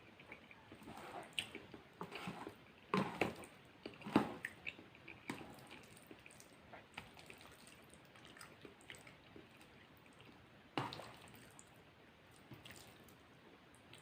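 Close-up wet chewing and mouth sounds of a person eating spaghetti: squishy chewing with scattered sharp smacks and clicks, the strongest a few in the first five seconds and one more near the end.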